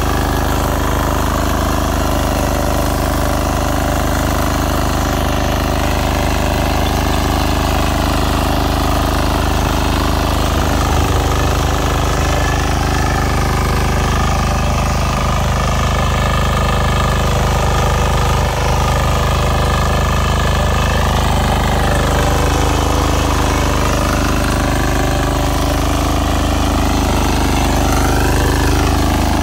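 Walk-behind power tiller's engine running steadily under load as its tines work through the soil.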